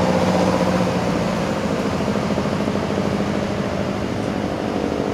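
Steady motor drone with a low hum; its pitched part fades about a second in, leaving an even rushing noise.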